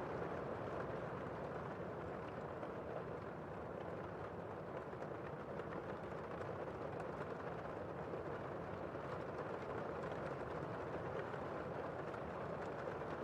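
Heavy rain heard from indoors: a steady, muffled rush with little high hiss.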